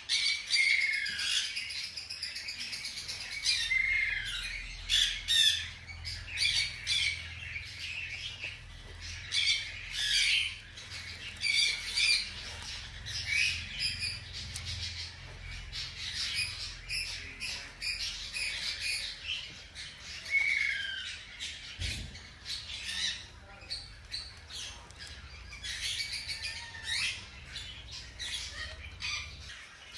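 Newborn hamster pups squeaking: many short, high-pitched squeaks and chirps, some falling in pitch, over rustling and crackling of seed husks in the nest.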